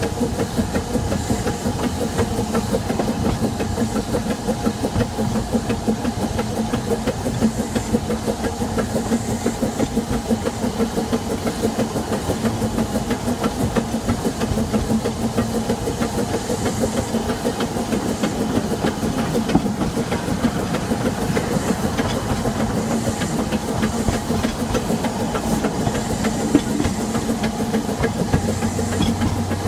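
Ffestiniog Railway Double Fairlie steam locomotive David Lloyd George working a train away from the station, its exhaust chuffing in quick, even beats over a steady hiss of steam. It is heard from the carriage right behind the engine.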